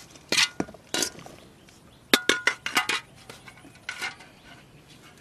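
Dishes and utensils clinking while ingredients are handled: a few sharp knocks, a quick run of clinks between two and three seconds in, and one more around four seconds in.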